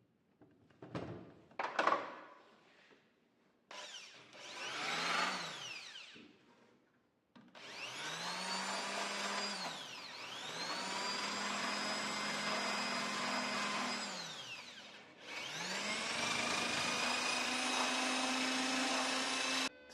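Handheld electric power tool run in four bursts, each winding up to speed, holding steady, then coasting down, after a few knocks near the start.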